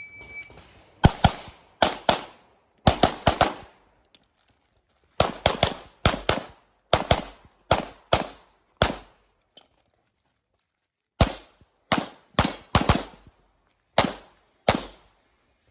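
A shot timer beeps once, then a handgun fires rapidly in quick pairs of shots. The string runs on with a pause of about two seconds in the middle. It is the start signal and shooting of a practical-shooting (IPSC) course of fire.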